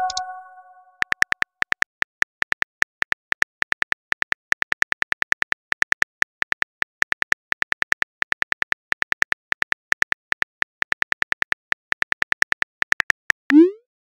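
Rapid, uneven phone keyboard typing clicks, several a second, as a message is typed. It opens on the fading ring of a message chime, and just before the end a short rising whoosh of a message being sent.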